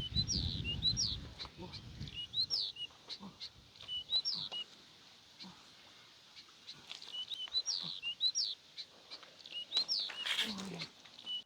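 A small bird calling, repeating a short high chirping phrase with quick upward glides every second or two. A low rumble sounds in the first two seconds, and a short noisy burst comes near the end.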